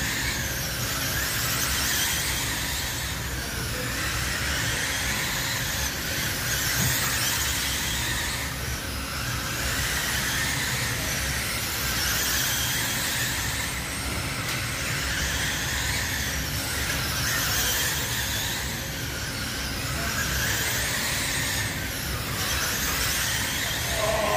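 Several radio-controlled midget race cars lapping a dirt oval, their motors making a high-pitched whine that rises and falls every few seconds as the cars go round.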